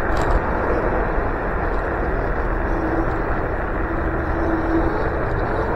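Steady wind rush and road noise from riding a Nanrobot D6+ electric scooter. A faint whine holds at about one pitch underneath.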